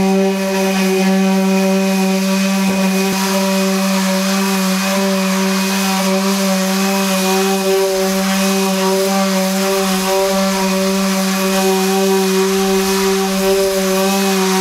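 Electric power sander running steadily on cedar deck boards: a constant-pitch motor tone over an even rushing hiss.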